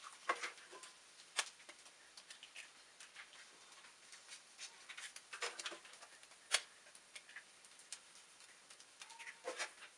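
Spinach and vegetables frying in a pan, giving faint, irregular crackling and popping clicks, with a few louder clicks now and then as eggs are added one by one.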